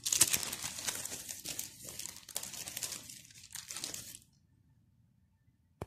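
Clear plastic sheet crinkling as it is handled and pulled over the drawing paper, for about four seconds, then stopping. A single sharp click near the end.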